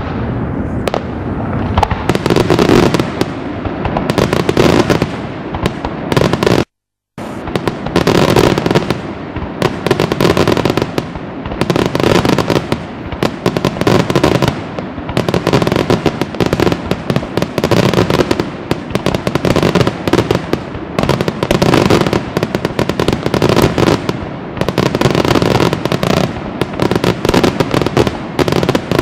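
Daytime fireworks: a dense, continuous barrage of rapid bangs and crackles as many small aerial bursts go off overhead, with a half-second break in the sound about seven seconds in.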